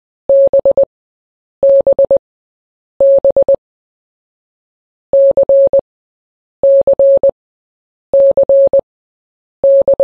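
Morse code beeps: a single mid-pitched electronic tone keyed in dahs and dits. It sends the letter B (dah-dit-dit-dit) three times, then after a short gap the letter C (dah-dit-dah-dit), repeated with short pauses between letters.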